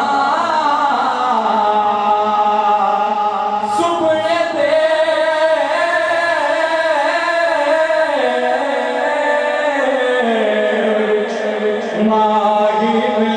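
Male voice singing a naat, an Urdu devotional song in praise of the Prophet, through a microphone and PA, with long held, ornamented notes.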